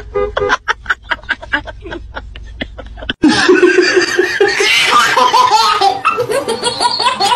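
Laughter in quick short bursts, about four a second. After an abrupt cut about three seconds in, a baby laughs loudly and without a break.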